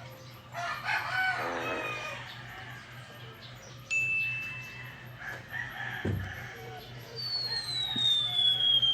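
A run of comic sound effects: a crowing, bird-like call in the first two seconds, a sudden short steady ring about four seconds in, a low thud about six seconds in, then a long falling whistle starting about seven seconds in.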